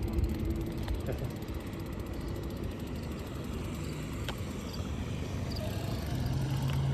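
Bicycle freewheel ticking rapidly while coasting, over a low rumble of tyres and wind.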